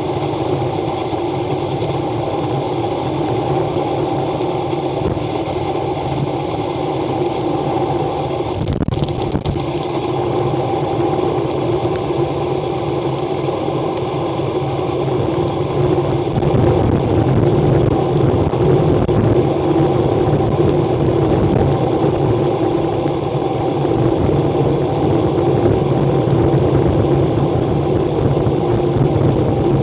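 Steady wind rush and wet-tyre hiss of a road bike coasting downhill at about 70 km/h on a rain-soaked road, picked up by a handlebar-mounted action camera's microphone. There is a brief bump about nine seconds in, and it gets a little louder in the second half.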